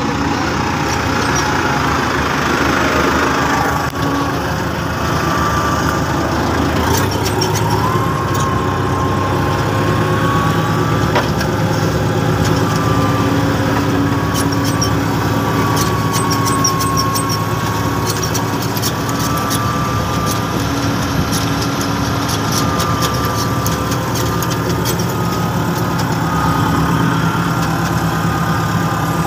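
Motor grader's diesel engine running steadily as its blade spreads gravel, with a whine that comes in about a quarter of the way through and wavers slightly in pitch.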